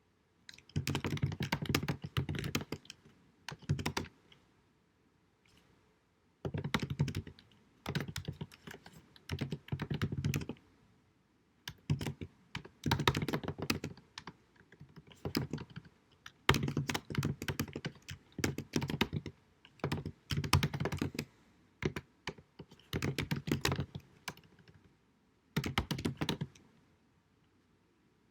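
Computer keyboard being typed on in runs of rapid key clicks lasting a second or two, broken by short pauses, with a longer pause about four seconds in and another near the end.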